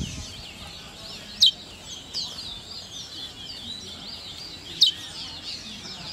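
A chorus of many caged songbirds singing at once, overlapping high chirps and trills. Twice, about a second and a half in and again near five seconds, a loud sharp note slides steeply downward.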